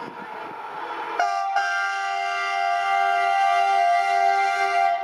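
Indian Railways diesel locomotive approaching with a low engine rumble, then sounding its multi-tone air horn about a second in. The horn chord is held steadily, with a brief break just after it starts, for nearly four seconds, and cuts off abruptly at the end.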